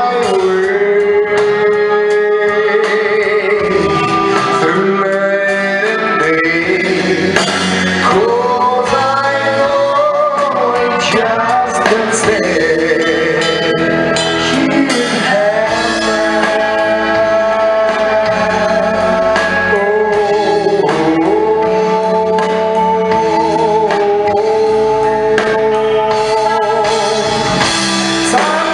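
A song: a singing voice holding long notes over continuous instrumental backing.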